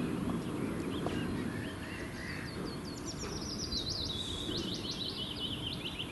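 A small songbird singing: faint chirps, then about three seconds in a quick run of high, clipped notes that steps down in pitch over some three seconds. Steady low background noise runs beneath it.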